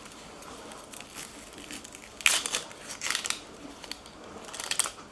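Dry, papery onion skin crackling and tearing as it is peeled off an onion with a kitchen knife, in three short bursts, the loudest about two seconds in.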